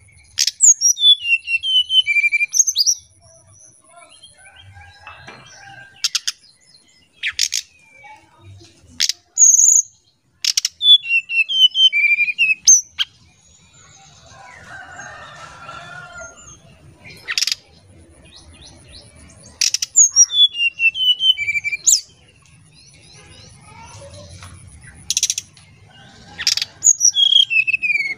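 Brown-chested jungle flycatcher singing in repeated phrases of sharp ticks and falling whistled notes, with short pauses between phrases.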